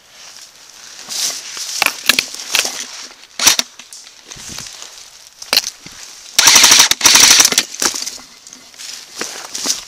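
Jing Gong AU-5G airsoft replica firing one rapid full-auto burst of just over a second, close and loud, about two-thirds of the way in. Around it, rustling of leaves and ivy as the replica is moved, with a few single sharp clicks.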